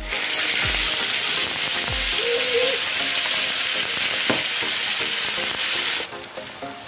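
Seasoned tilapia pieces being laid into hot oil in a frying pan, the oil sizzling loudly. The sizzle drops off sharply about six seconds in, leaving quieter frying under background music.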